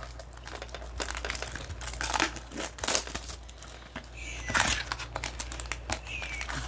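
Foil-wrapped trading-card packs and thin cardboard mini boxes being handled and opened: a steady run of crinkling and rustling made of many short crackles. Two brief high squeaks come about four and six seconds in.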